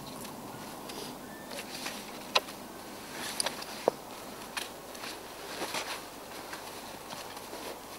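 A few sharp clicks and knocks of fishing tackle being handled, a feeder rod set down on its rest and a landing net holding a freshly caught bream, over a steady background hiss.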